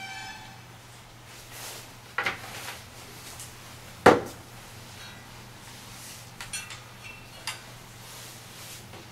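A few sharp knocks and clinks of objects handled on a tabletop, the loudest about four seconds in, with lighter clicks later, over a steady low hum.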